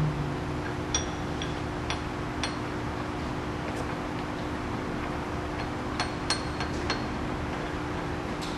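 Steady machine hum with a few light clicks and clinks: a handful about a second or two in and another cluster about six seconds in.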